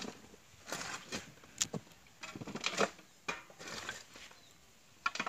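Hoes chopping into and scraping through stony earth, a series of irregular strikes about every half second to a second, with a quieter gap near the end.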